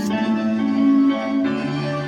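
Instrumental music of held, overlapping pitched notes; a lower note comes in near the end.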